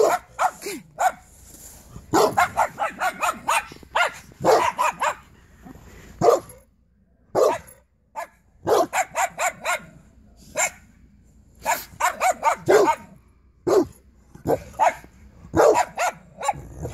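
A Dogue de Bordeaux and a small white dog barking together in guarding, in quick runs of barks with short pauses between.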